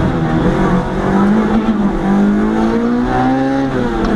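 Competition car's engine heard from inside the cabin, revving hard under acceleration: its pitch climbs, drops sharply about two seconds in at a gear change, climbs again and drops once more near the end.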